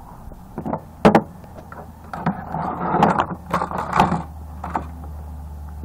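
Tools and plastic parts from a dismantled battery backup unit being handled on a ribbed plastic surface: a sharp click about a second in, then a few seconds of rustling and clattering with small clicks. A steady low hum runs underneath.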